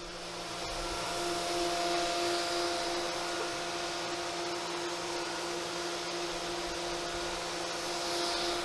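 Haas VF-2SS CNC vertical mill running a milling toolpath: a steady whine with several tones from the spindle and cutter, over a continuous rushing hiss.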